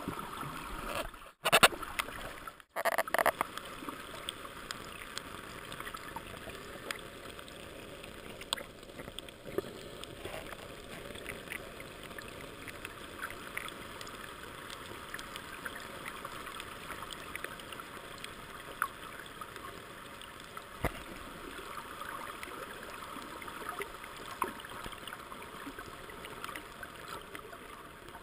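Underwater sound picked up by a camera in its waterproof housing: a steady muffled hiss with scattered small clicks. A few louder knocks and two brief dropouts come between one and three seconds in.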